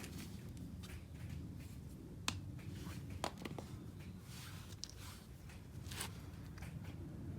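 A few scattered sharp clicks and light taps over a low steady hum.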